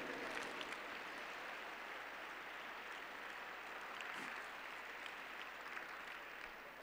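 Faint applause from an audience: a steady patter of many hands clapping that fades away near the end.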